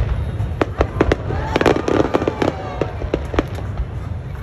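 Aerial fireworks bursting overhead: a fast, irregular run of sharp bangs and pops, several a second, over a low steady rumble.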